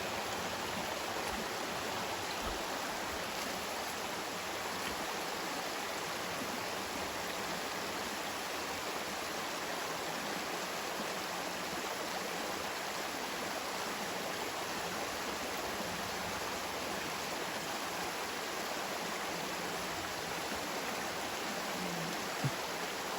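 A shallow river running over rocks: a steady rush of moving water. The river is running low after a dry spell.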